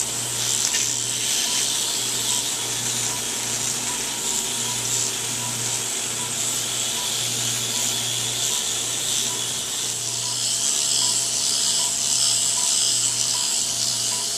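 Liposuction suction hissing steadily as liquefied fat is drawn through the cannula and tubing into the collection canister, over the low hum of the motorized power-assisted liposuction handpiece, which swells and dips with the strokes. A faint, rapid beeping runs underneath.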